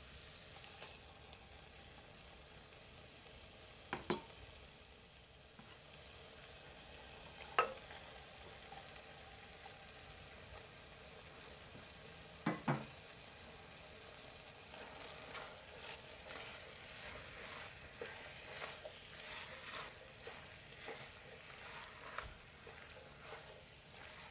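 A pot of ground beef and tomato sauce sizzling faintly as potato pieces and diced zucchini are tipped in, with a few sharp knocks. Later a spoon stirs the mixture, with many small irregular scrapes and clicks against the pot.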